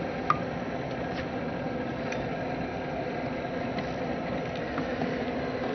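Steady hum and hiss of a spacecraft cabin's ventilation fans and life-support equipment, with a low steady tone under it and a light click just after the start.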